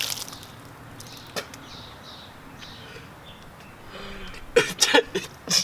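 A man retching and coughing as he vomits, with several loud gags close together near the end.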